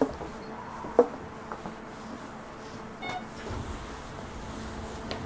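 Quiet interior of a Hanshin 1000 series train at the platform: a low steady hum with scattered clicks and knocks, one sharp knock about a second in, and a short electronic beep about three seconds in.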